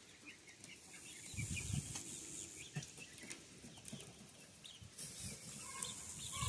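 Young chickens peeping softly and often while pecking at scattered feed, with a few faint low thumps about a second and a half in.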